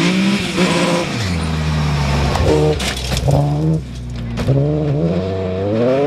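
BMW 1M Coupé rally car accelerating hard on a dirt stage, its engine revs rising and dropping back several times as it changes gear and pulls away. A few sharp cracks come about halfway through.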